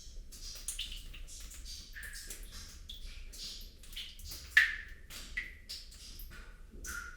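Water droplets plinking into water, irregular short pitched drips several times a second, with one louder plink about halfway through.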